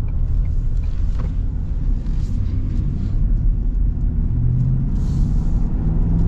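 Ford Super Duty 7.3-litre gas V8 accelerating, heard from inside the cab: a steady low engine hum whose pitch starts rising about two-thirds of the way in as the engine revs up.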